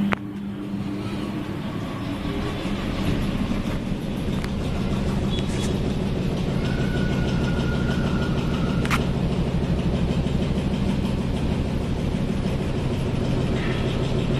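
Ceiling fan hung on extra downrods, running with an extreme wobble: a steady, loud mechanical rattle and hum, with a few sharp clicks.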